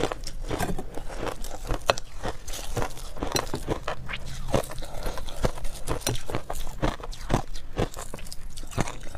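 Compacted shaved ice being chewed, crisp irregular crunches about two times a second.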